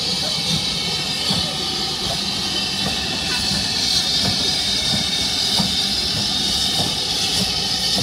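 Steam hissing steadily from BR Standard Class 4 tank locomotive 80097.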